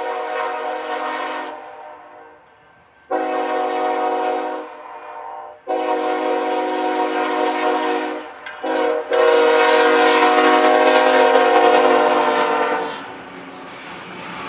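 BNSF diesel locomotive horn sounding a series of blasts, several long and one short, ending long, long, short, long: the standard grade-crossing warning. The last long blast is held about four seconds, and after it stops the passing train's steady rumble of wheels on rail remains.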